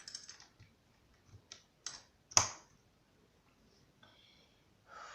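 Plastic snap-on parts of an electronics construction kit clicking and clattering as they are handled and pressed onto the board, with one sharp, loud snap a little after two seconds in.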